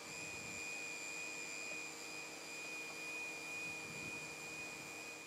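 Automatic hot-air welding machine running along a plastic membrane seam: a steady blower hiss with a thin, steady high whine from its fan and drive motor.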